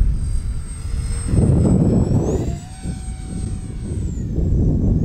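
Twin 50 mm electric ducted fans of an RC Boeing 737 airliner model in flight, a thin high whine that rises in pitch about halfway through and falls again near the end, over a low rushing noise.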